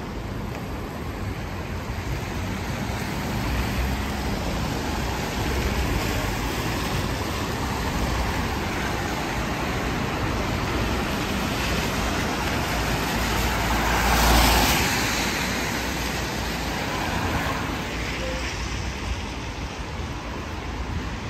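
Road traffic on a rainy street: a steady hiss, with one vehicle passing close about two-thirds of the way in, its sound swelling and then fading.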